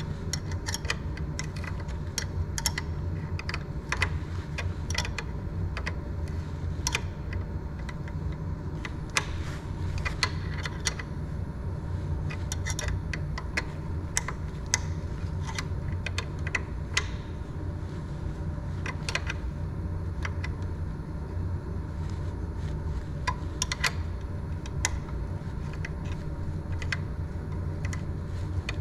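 Irregular small metallic clicks and taps of a hand tool working the screws of a Prusa XL 3D printer's tool head, over a steady low hum.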